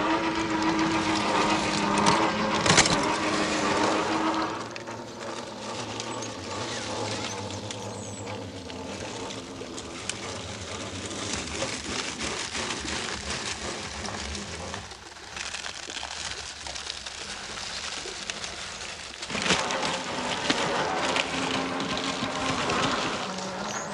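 A 1/10-scale Traxxas TRX-4 RC crawler driving off-road. Its brushless motor whines steadily under throttle at the start and again near the end, with a quieter stretch of scuffing and small clicks in between.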